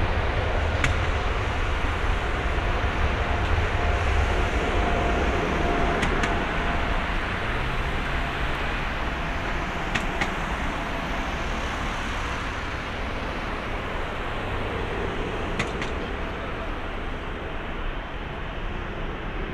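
Boeing 777-300ER's twin GE90-115B turbofans at takeoff thrust during the takeoff roll: a loud, steady jet noise, heaviest in the low end, that slowly fades as the airliner accelerates away down the runway.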